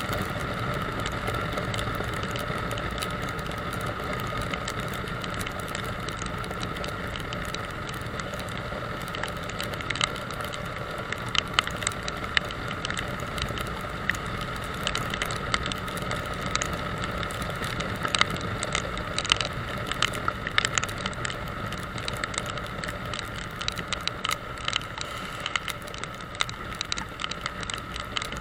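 Motorcycle running steadily along a wet road, with engine and tyre noise and a steady high hum. From about ten seconds in come many sharp ticks and rattles.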